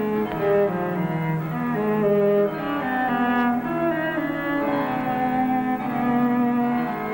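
Background music on bowed strings: slow, long-held notes, several sounding together, moving from pitch to pitch.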